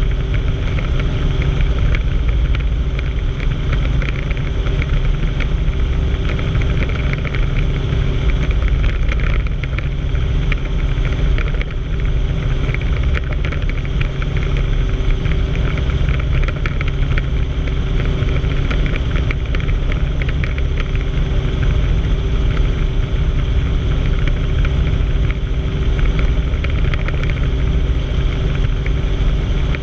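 Helicopter in flight heard from inside the cabin: steady engine and rotor drone.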